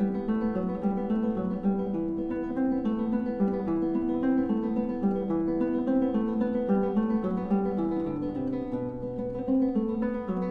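Background music of acoustic guitar, plucked notes moving in a steady flowing line.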